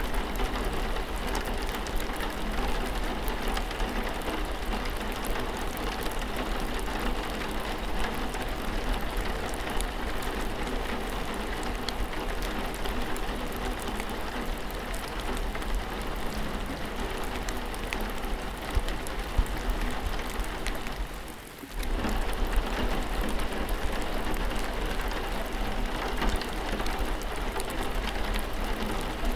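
Steady rain falling, with scattered individual drops ticking on a surface. The sound dips briefly about two-thirds of the way through, then comes back.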